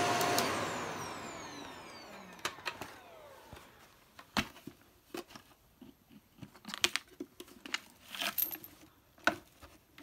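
Shark vacuum cleaner switched off, its motor spinning down with a falling whine that fades over about three seconds. Then scattered clicks and knocks of the machine being handled.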